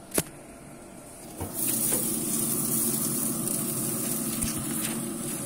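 A sharp click just after the start, then a knock as the barrel grill's lid is lifted about a second and a half in, after which steaks sizzle steadily on the hot grate.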